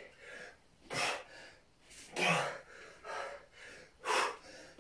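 A man breathing hard through an exercise set: four sharp, noisy breaths, about one a second, in time with his sit-up reps.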